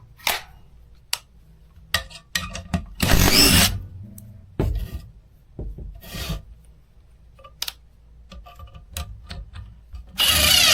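Craftsman V20 brushless 1/4-inch cordless impact driver driving a fastener in short bursts, with clicks of handling between them; a longer, louder run starts near the end.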